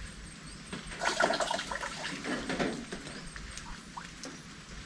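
Rain falling and dripping in scattered ticks and patters, with a louder, rougher burst of sound from about one to three seconds in.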